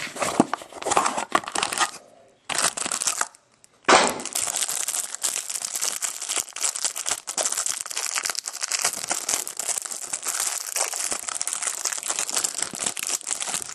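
Clear plastic wrapping around a stack of trading cards crinkling and crackling as hands handle it and pull it open. There are brief gaps in the first few seconds, then unbroken crinkling.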